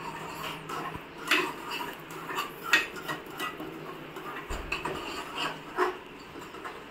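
Metal kitchen utensils and pots clinking and knocking irregularly, about a dozen sharp clinks, the loudest about a second and a half in, near three seconds and near six seconds.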